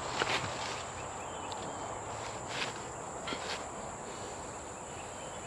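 Steady high-pitched drone of an insect chorus, with a few light clicks and rustles now and then.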